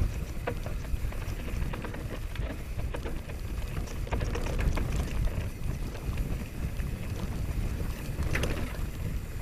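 Mountain bike descending dirt singletrack: wind rushes over the camera microphone with a steady low rumble, and the tyres and frame give scattered clicks and rattles over the rough ground.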